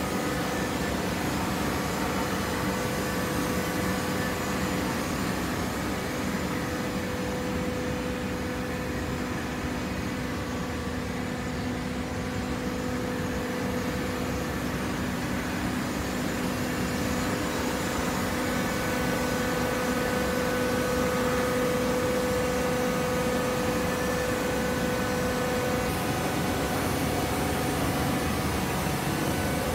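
Hydraulic power unit of a vertical cardboard baler running with a steady hum that holds one pitch, getting slightly louder about halfway through.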